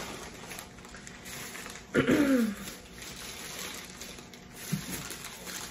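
Plastic packaging and a cardboard box rustling as items are handled, with a short vocal noise falling in pitch about two seconds in.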